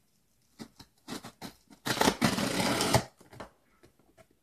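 Scissors point slitting the packing tape along a cardboard box's seam: a few short clicks and scrapes, then a scraping drag lasting about a second, then a few small clicks.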